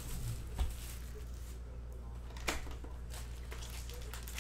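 Plastic shrink-wrap crinkling as it is torn off a cardboard trading-card hobby box and the box is handled. Two sharp clicks, about half a second and two and a half seconds in, over a steady low hum.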